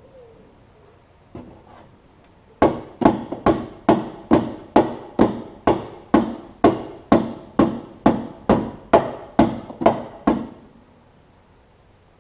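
Body hammer striking the dented steel rear fender of a 1946 Chevy, about nineteen ringing blows at roughly two a second for about eight seconds, knocking out the remaining dent.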